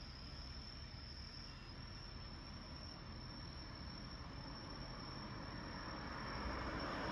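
Crickets singing a steady, high-pitched trill over a low traffic hum. Near the end an approaching vehicle's tyre and engine noise grows louder.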